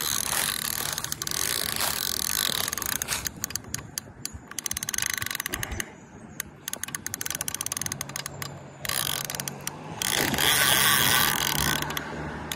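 Fishing reel ratcheting in quick runs of rapid clicks that stop and start.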